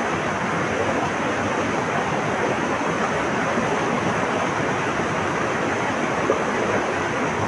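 Flowing water rushing steadily, an even continuous wash of noise with no breaks.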